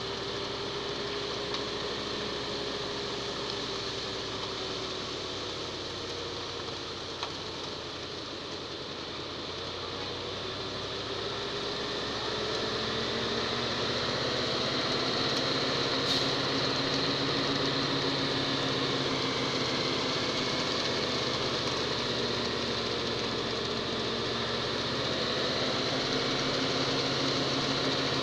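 Ready-mix concrete truck's engine running, its pitch drifting slowly up and down as the rotating drum discharges concrete down the chute. It gets louder about twelve seconds in.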